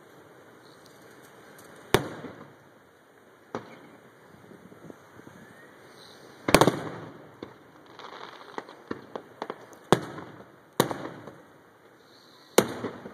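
Aerial firework shells bursting: about six sharp booms spread across the stretch, the loudest about six and a half seconds in, with a cluster of smaller pops between them.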